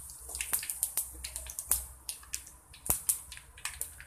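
Mustard and cumin seeds crackling and popping in hot oil as a tempering fries. The sharp pops come at irregular intervals over a faint sizzle, with one louder pop about three seconds in. The spluttering is the sign that the oil is hot enough for the tempering.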